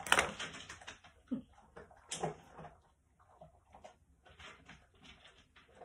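Handling noises on a countertop as a small plastic colour bottle is opened and handled: a loud rustle-and-clack right at the start, a couple of sharper knocks about one and two seconds in, then soft rustling.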